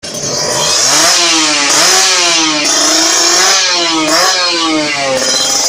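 Kawasaki Ninja 150R two-stroke single-cylinder engine with a Silver Fox aftermarket racing exhaust, revved in several throttle blips so the pitch repeatedly rises and falls back.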